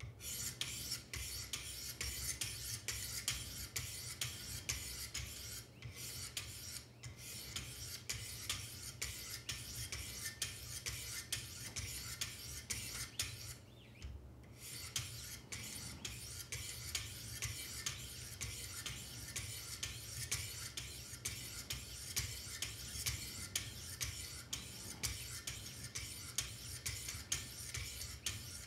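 Two 400-grit sharpening stones on a Wicked Edge guided sharpener scraping along both sides of a knife edge in quick back-and-forth strokes, an even rasping rhythm with short breaks about six, seven and fourteen seconds in.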